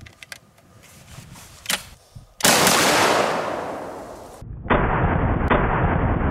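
Chiappa Triple Threat triple-barrel 12-gauge shotgun being fired in a fast-shooting run: a few light clicks as the loaded gun is closed, then a loud shot about two and a half seconds in that rings out and fades. A second, duller blast follows about two seconds later and keeps going.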